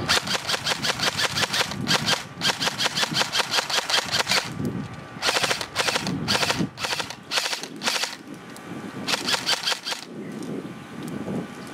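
Lancer Tactical LT-19 Gen 2 M4 Keymod electric airsoft rifle (AEG) firing on full auto, a rapid even chatter of shots. Two long bursts of about two seconds each come first, then a string of short bursts, and a last burst shortly before it stops.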